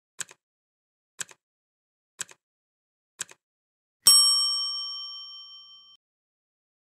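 Countdown-timer sound effect: four short double ticks, one a second, then a bright ding that rings out and fades over about two seconds, signalling that time is up.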